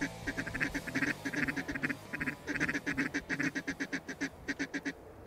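Ducks quacking in fast runs of short, repeated notes, many a second, as the flock works over the decoy spread, with a short lull near the end.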